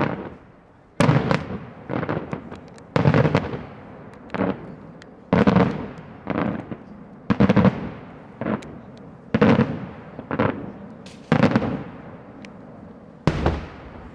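Daylight fireworks display: a run of loud bangs going off about once a second, sometimes two in quick succession. Each sharp report is followed by a rolling echo.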